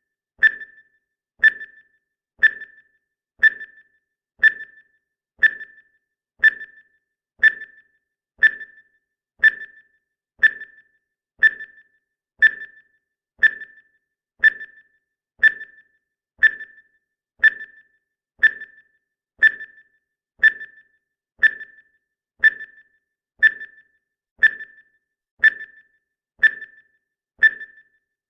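Countdown timer's ticking sound effect: a short, pitched tick once every second, perfectly even and steady.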